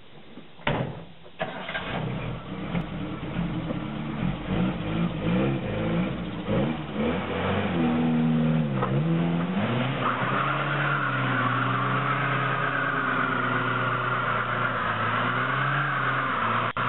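An old Datsun sedan's car door thuds shut, then its four-cylinder engine starts and is revved up and down several times. About ten seconds in the rear tyres break loose in a burnout, a steady high tyre squeal over the engine held at high revs.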